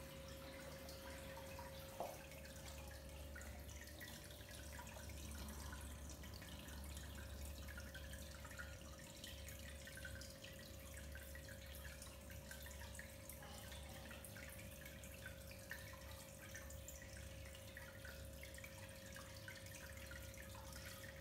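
Aquarium filter water faintly trickling and dripping, with a steady hum underneath and one small click about two seconds in.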